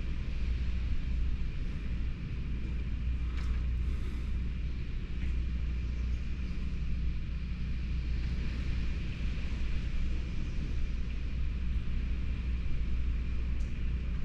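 Hurricane wind and driving rain: a steady low rumble of gusting wind over the hiss of rain, with a faint steady high whine and a few light ticks.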